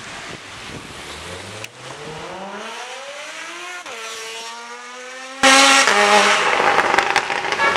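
Porsche 911 Carrera GTS flat-six through an IPE exhaust accelerating, its revs climbing steadily. The pitch drops sharply about four seconds in, as at an upshift, holds, then the sound turns suddenly much louder about five and a half seconds in.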